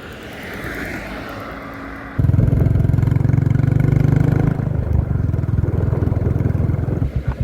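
Motorcycle engine running steadily while riding. Its low, loud note comes in suddenly about two seconds in, after a rising hiss, and breaks up into a few pulses near the end.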